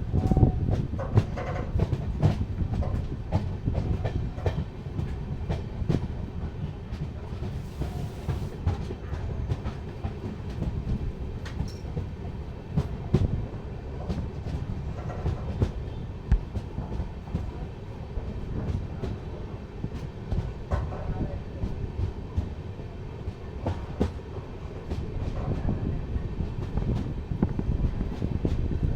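Train moving along the track: a steady low rumble with frequent sharp, irregular clicks and knocks.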